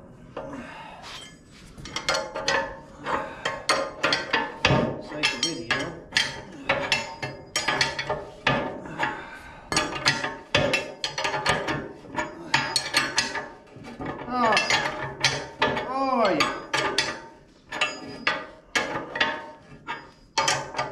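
Steel bolts, nuts and a wrench clinking and tapping against a mini excavator's steel bucket as the nuts are threaded on and worked, in a busy run of small metallic clicks and knocks. Around the middle, a few short squeaky tones rise and fall.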